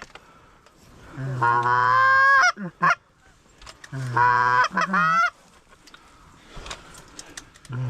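Hand-blown goose call giving two long, loud moans, each ending in quick breaks up in pitch, imitating Canada geese to bring in incoming birds.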